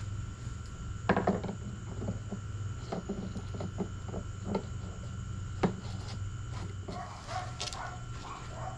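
Scattered light knocks and clunks from handling a fuel can and funnel at a generator's gas tank, the sharpest about a second in and again past the middle. A few short squeaks near the end.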